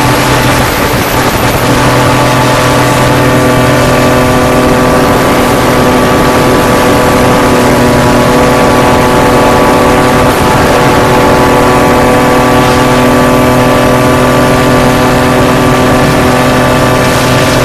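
Racing hovercraft's engine running loud at steady high revs, holding an even pitch with a brief unsteady moment about a second in.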